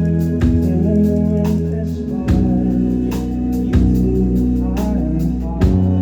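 Live indie rock band playing an instrumental passage: sustained organ-like keyboard chords over bass guitar, with regular drum hits.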